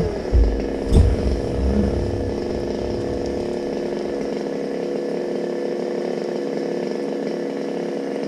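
Chainsaw engine dropping from high revs to a steady idle, with two heavy thumps in the first second, then being shut off near the end, its pitch sinking as it dies away.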